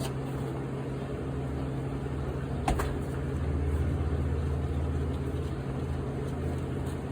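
Steady low mechanical hum, like an idling engine or running motor, with one sharp click about a third of the way in.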